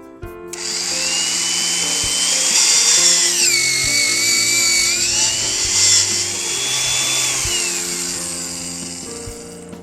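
Electric pipe-facing tool on a polyethylene butt-fusion machine running with a high whine. Its pitch dips for about a second and a half midway, then comes back up, and it winds down near the end.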